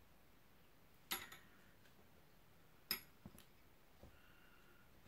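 Near silence with a few faint, sharp clicks and taps, two clearer ones about a second and three seconds in, followed by smaller ticks and a faint short whine near the end.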